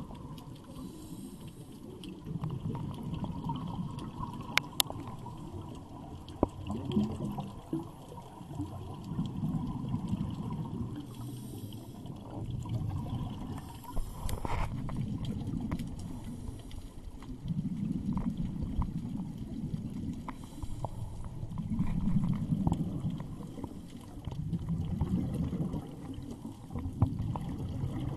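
Scuba divers' exhaled regulator bubbles gurgling underwater, swelling in surges every few seconds with their breaths. A few sharp clicks are heard among them.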